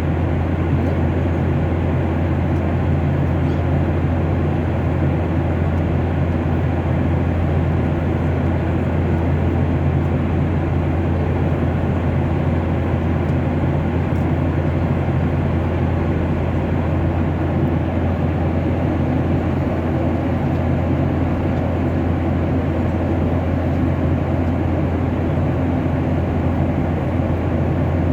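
Steady drone of an aeroplane in flight, heard from inside the cabin: a constant low hum under an even rushing noise that neither rises nor falls.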